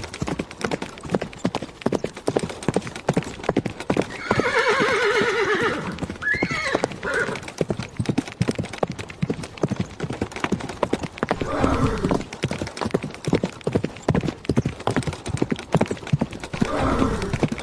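Horse hoofbeats, a fast steady run of hoof strikes, with a horse whinnying three times: a long trembling whinny about a quarter of the way in, another around two-thirds of the way through, and a third near the end.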